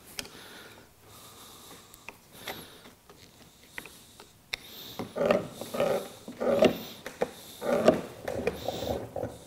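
A screwdriver turning the gib adjustment screw on a LeBlond lathe compound gives a few light clicks. From about five seconds in, the compound's top slide is pushed back and forth on its dovetail: a repeated metal scraping about twice a second, with faint squeaks, as the gib is tested for side-to-side play.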